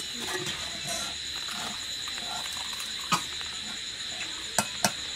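Steady high chirring of evening crickets, with a few sharp crunches of crisp fried singaras being bitten and chewed, once about three seconds in and twice near the end.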